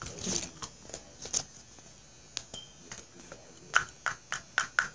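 Hands unfolding and handling the folded paper leaflet that comes with a Yowie surprise toy, crinkling in scattered sharp crackles that come thicker near the end.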